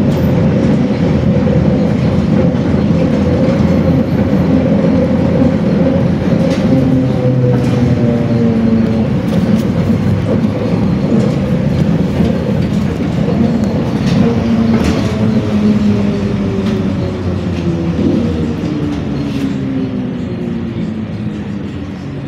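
ZiU-682 trolleybus's electric traction drive whining in the passenger cabin; the whine falls steadily in pitch through the second half as the trolleybus slows, and the sound grows quieter near the end. Occasional sharp clicks and rattles come from the body.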